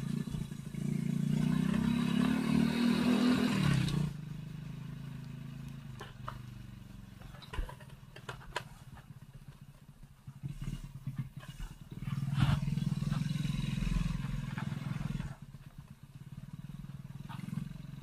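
Motor scooter engine running under throttle while ridden over a rough dirt track. The throttle eases off about four seconds in, leaving a quieter run with scattered clicks and knocks. It opens up again around twelve seconds in and eases off a few seconds later.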